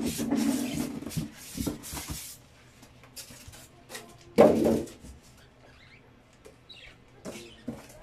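Styrofoam packing blocks squeaking and rubbing against a cardboard box as they are pulled out, for about the first two seconds. About four and a half seconds in there is one short, loud sound, then scattered light knocks and rustling.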